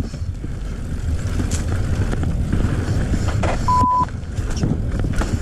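Mountain bike riding fast down a dirt forest trail: rumbling wind on the microphone, tyre noise and rattling knocks from the bike over the rough ground. About two-thirds through, a short steady beep sounds once.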